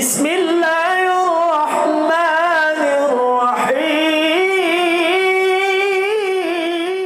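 A solo voice singing a slow, ornamented melody, holding long notes that waver and bend in pitch, with no instruments heard.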